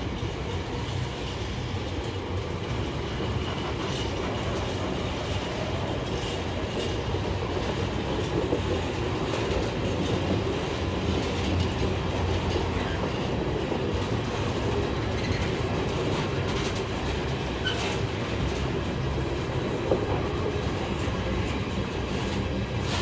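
Class 66 diesel-hauled container freight train running past, a steady rumble of steel wheels rolling on the rails.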